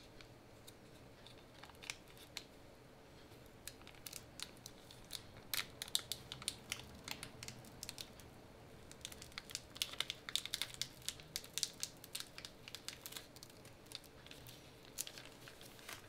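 Clear protective plastic film crinkling and crackling as it is peeled off a keyboard's bottom case and polished weight, in irregular clusters of sharp crackles.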